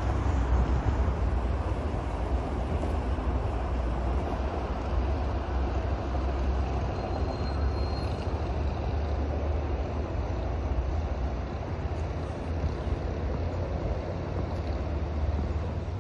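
Steady rumble of city street traffic, heaviest in the deep bass, with no distinct events.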